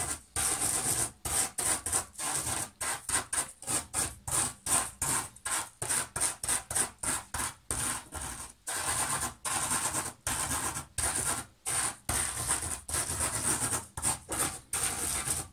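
A stick of chalk rubbed and ground through table salt on a sheet of paper: gritty scratching in quick, uneven back-and-forth strokes, a few a second. The salt grains are being crushed against the chalk to tint them.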